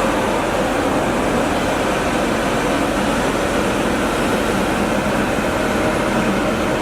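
DoAll by Romi 20H engine lathe running under power, a steady, even mechanical whir.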